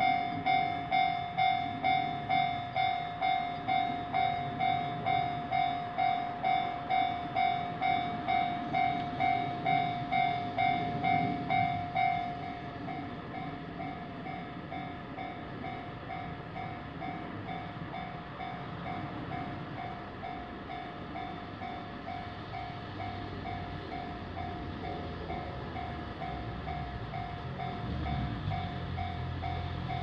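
Japanese railway level crossing's electronic warning bell ringing in an even, repeated ding a little under twice a second. About twelve seconds in it drops to a quieter level and keeps ringing. A low rumble from a train on the line grows near the end.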